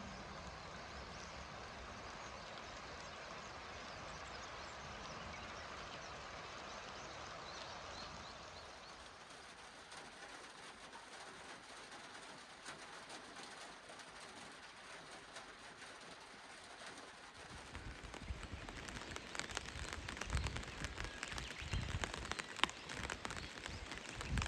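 Rain falling with an even hiss. In the last third, a denser patter of drops and taps on a hard surface sets in, with low thumps among them, growing louder.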